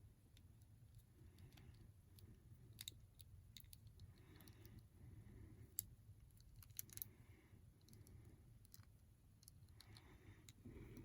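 Faint, scattered clicks of a small plastic action figure and its parts being handled and posed, against near silence.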